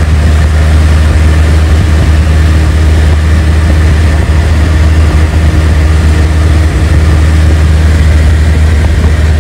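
Cessna 172's piston engine and propeller droning steadily in level flight, heard from inside the cabin as a loud, even low hum.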